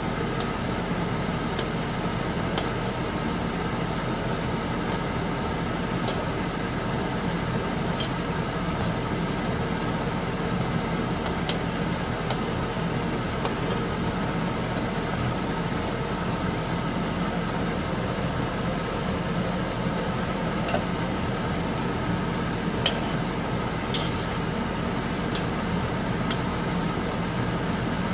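Beef fat simmering in water in a wok, under a steady whirring hum from the stove or kitchen fan, with a few sharp clicks and pops that come more often in the last several seconds.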